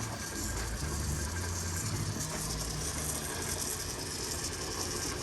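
Restored 1930s Delta Double Duty lathe running on its new electric motor, a steady mechanical whir over a low hum, running smoothly 'like a sewing machine'.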